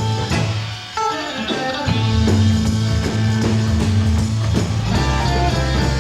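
A live rock band playing an instrumental jam: guitar, bass and drums, with a brief drop in volume about a second in and a note held for a couple of seconds in the middle.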